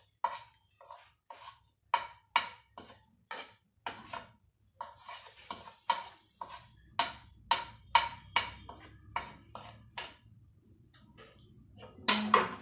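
Metal spoon clinking repeatedly against a plate and the rim of a steel pot as spice powder is knocked off into the pot, about two sharp clinks a second, each with a short ring. Near the end, a louder clatter and scrape as the spoon starts stirring in the pot.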